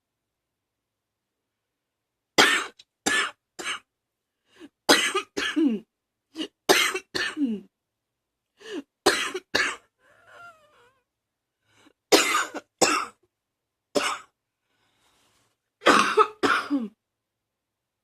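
A person coughing in repeated short fits of two or three coughs each, with brief silent pauses between fits. It is a lingering cough that the uploader puts down to allergies.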